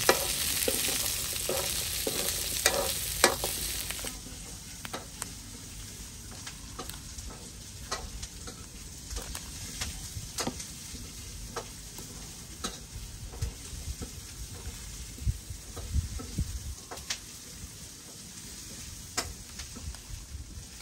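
Vegetables stir-fried in a wok: a steady sizzle with a metal spatula scraping and clicking, cutting off suddenly about four seconds in. After that there are only faint, scattered clicks and crackles as hands pull apart a grilled fish.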